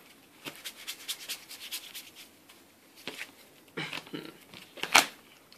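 Sleeved trading cards being handled and shuffled by hand: a quick run of light clicks and rustles, then a few louder snaps. The sharpest comes about five seconds in.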